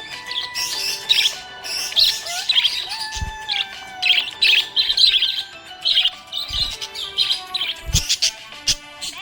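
Budgerigar chirping and warbling in quick, busy phrases, over steady held background tones. A few short low thuds are heard, about three and a half, six and a half and eight seconds in.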